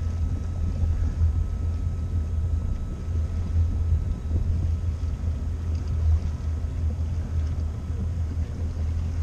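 Malibu ski boat's inboard engine running steadily under way while towing a tube: a continuous low drone with a faint high whine over it that fades out near the end.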